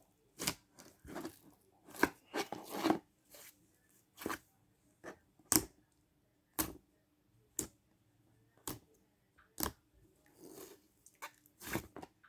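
Homemade slime being squished by hand, its air bubbles bursting in sharp pops and crackles: a crackly cluster in the first few seconds, then single pops about once a second.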